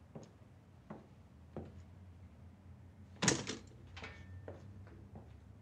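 Slow footsteps on stairs, three soft steps about 0.7 s apart, then a sharp clatter about three seconds in, the loudest sound, followed by a few softer knocks.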